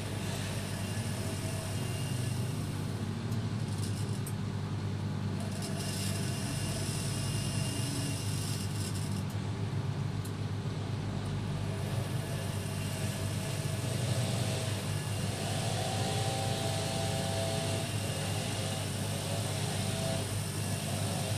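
AEG Lavamat 6410 front-loading washing machine running, a steady low hum under an even hiss. A faint higher whine joins for a few seconds about two thirds of the way through.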